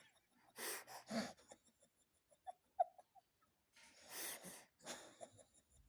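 Baby breathing in short, noisy huffs, two about a second in and two more about four seconds in, with a few brief squeaks near the middle.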